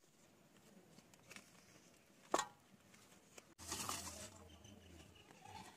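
Quiet handling of banana-leaf fish parcels on a steel plate: soft rustling of the leaves, one sharp tap with a short ring about two seconds in, and a brief rustle a little later.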